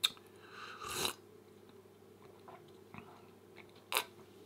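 Close-miked eating sounds: biting and chewing food, with a sharp mouth click at the start, a brief noisy swell about a second in, and another sharp click about four seconds in.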